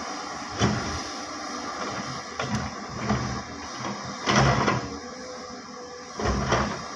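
Hyundai crawler excavator working: a steady diesel engine and hydraulic hum with four short louder surges as the bucket digs into and lifts soil, the loudest a little past the middle.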